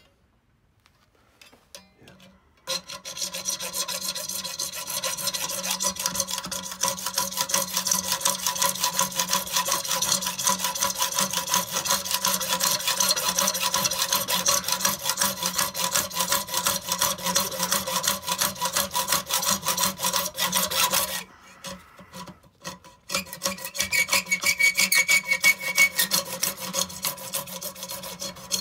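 Hacksaw cutting through a metal plate clamped in a vice, in quick back-and-forth strokes. The sawing starts a few seconds in, stops for about two seconds about three-quarters of the way through, then starts again.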